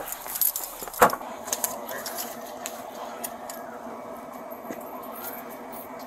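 Light metallic jingling and clicking, like keys or duty-belt gear moving as a police officer walks, with one sharp knock about a second in. A steady engine hum runs underneath.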